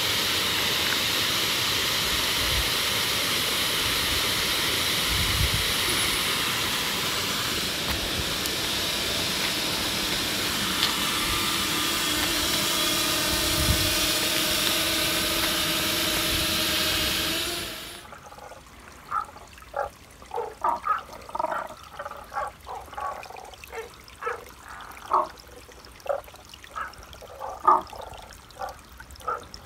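Waterfall pouring steadily, then cut off abruptly after about eighteen seconds. After that, frogs calling from a mountain stream in short, repeated notes over a faint trickle of water.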